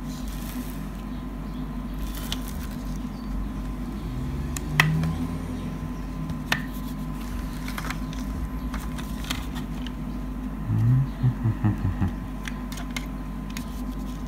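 Plastic CD jewel case and its paper booklet being handled: scattered light clicks and taps of the plastic, the sharpest about five seconds in, over a steady background hum.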